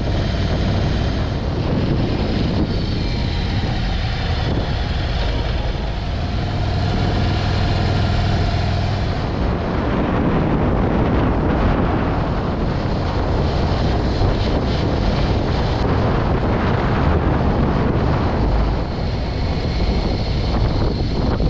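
Harley-Davidson motorcycle engine running under way through a series of curves, with wind rushing over the camera microphone.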